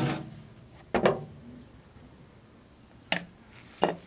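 Handling sounds as a circular fluorescent tube is taken out of a microwave: four sharp clicks and knocks, one about a second in that rings briefly, and two close together near the end.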